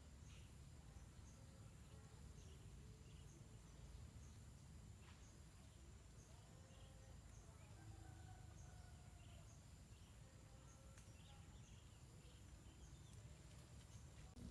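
Near silence: faint outdoor ambience, a steady low rumble with faint high chirps repeating about once a second, typical of insects or birds.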